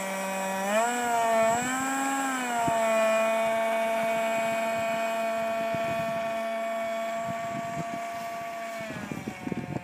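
Electric RC F-18 model jet's motor whining, its pitch surging up twice about a second in before settling into a steady high whine under power. The pitch sags near the end.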